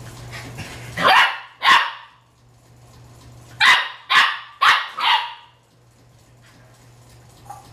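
A puppy barking: two sharp barks about a second in, then four more in quick succession, about half a second apart, a couple of seconds later.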